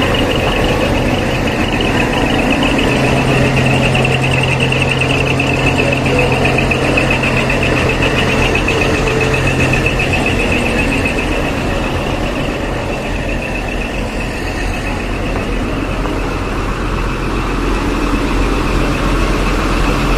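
Big diesel truck engines running steadily, with a low held tone for the first half, under a continuous high warbling tone.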